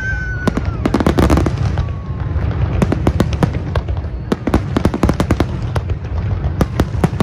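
Large fireworks display: a rapid, irregular string of shells bursting with bangs and crackles, thickest about a second in, over a steady low rumble.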